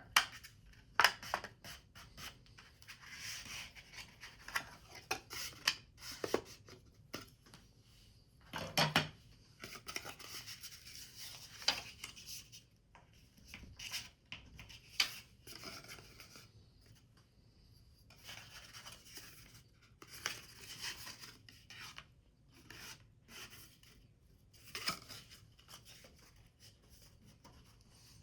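Paper being handled and worked by hand: irregular rustling and rubbing with sharp clicks and taps.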